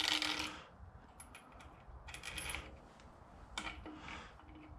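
Small steel pieces of a power steering pulley installer tool clinking and clicking against each other in the hands as they are fitted onto the threaded stud, with a few short metallic rings.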